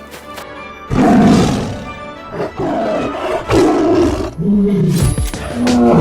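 Several loud animal roars in a cartoon, the first starting about a second in and more following, over background music.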